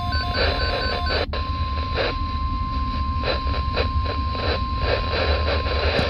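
Midland WR-300 weather radio sounding an alert. An electronic beeping pattern stops about a second in, and after a short break the steady single-pitched NOAA Weather Radio 1050 Hz alert tone comes through the radio's speaker: the attention signal that comes before a voice warning message.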